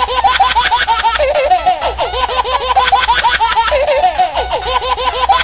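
Meme soundtrack: a high, laughing voice giggling in quick rising and falling bursts over a fast beat with a pulsing bass, repeating as a loop.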